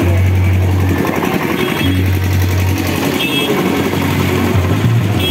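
Loudspeaker sound system playing distorted music: a deep bass note sounds for about a second and repeats roughly every two seconds. Underneath is the dense noise of a large crowd.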